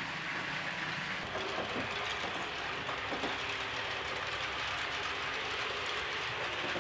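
HO-scale model trains running on the layout's track: a steady rolling noise of small wheels on rail.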